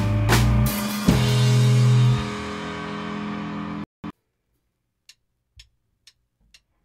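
Rock band playing: electric guitar and bass holding sustained notes over drum and cymbal hits, fading and then cutting off about four seconds in with one last short hit. Then four soft clicks at an even beat, about two a second.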